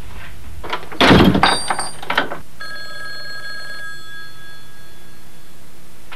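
A loud thump about a second in, then a rotary desk telephone rings: one steady, high ring of about three seconds.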